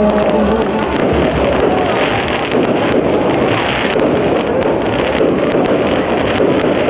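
Fireworks going off: a dense, continuous crackle of many irregular sharp pops. The end of a sung serenade with guitar and trumpet fades out in the first second.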